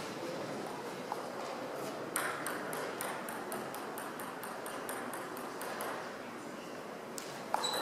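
Light ticks of table tennis balls striking tables and bats, a quick run of about three or four a second for a few seconds in the middle, over the steady murmur of a large hall; a sharper tick comes near the end.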